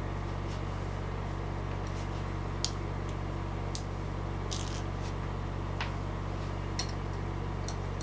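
Light, scattered clicks, about ten in all, from small lock parts being handled: the brass plug of a disassembled Corbin cabinet lock and tweezers holding its pin tumblers. A steady low hum runs underneath.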